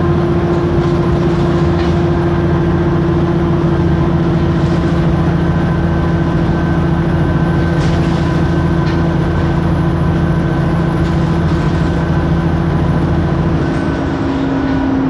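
Diesel bus engine running steadily with cooling fans and a thin high turbo whine. Near the end the whine falls away and the engine note drops a little lower.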